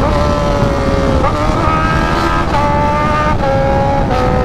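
Honda sport bike's engine running at highway speed under heavy wind rush. Its pitch steps up about a second in and again a second later, then eases down near the end.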